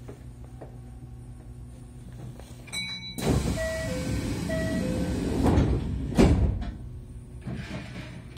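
Kintetsu electric train standing at a platform with a low hum underneath. About three seconds in comes a rush of hissing air with a two-note chime sounding twice, then two heavy thumps under a second apart as the sliding doors shut.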